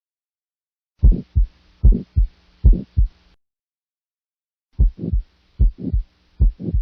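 Heart sounds heard through a stethoscope: lub-dub pairs of low thumps, three beats about 0.8 s apart, then a second or so of silence, then three more beats.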